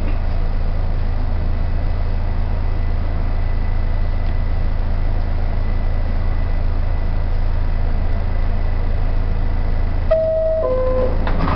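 R68 subway car standing in the station with its equipment giving a steady low hum and a thin high whine, then near the end the two-note falling door-closing chime sounds.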